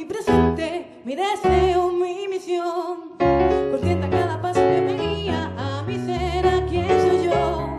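A woman singing with vibrato, accompanied by a digital keyboard piano. She holds one long note early on while the low piano notes drop away, then the piano chords come back in about three seconds in.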